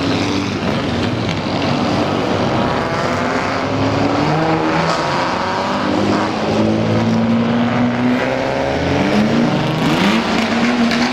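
Engines of old Japanese custom cars revving as they drive in, their pitch rising and falling in overlapping sweeps, with one engine holding a steadier note near the end.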